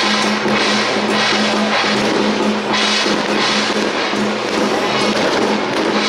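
Temple procession percussion: drums with brass hand cymbals clashing in a steady beat, the cymbal crashes coming roughly once a second over a steady low tone.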